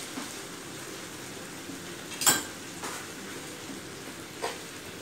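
Tomato-and-onion sauté sizzling steadily in a frying pan while a metal spoon stirs in shrimp paste, knocking against the pan a few times, the loudest about two seconds in.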